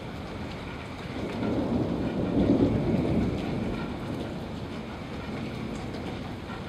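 A thunder rumble over steady rain: it builds about a second in, is loudest near the middle, and dies away after about four seconds, leaving the rain.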